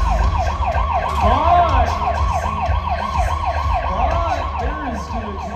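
Siren-like yelping tone, rising and falling rapidly about four to five times a second and fading near the end, played over an arena sound system above a low crowd rumble.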